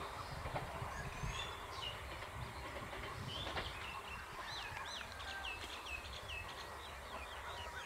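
Faint low rumble of an express train running away into the distance, with a bird calling over it: a quick series of short repeated chirps from about the middle on.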